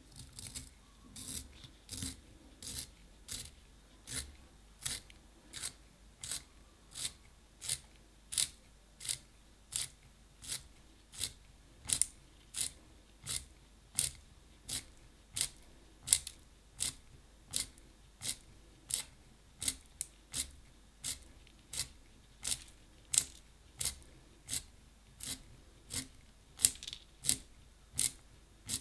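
Wooden pencil being turned in a small handheld plastic pencil sharpener, the blade shaving off wood and graphite in short, evenly spaced scraping strokes, about one and a half a second.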